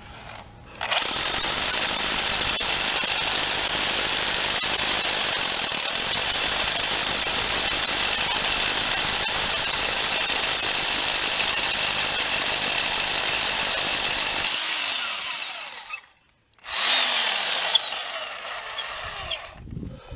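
Rotary hammer drilling through stone veneer and poured concrete with a long masonry bit: it starts about a second in, runs steadily and loudly for about thirteen seconds, winds down with a falling whine, stops briefly, then runs again for a few seconds before winding down once more.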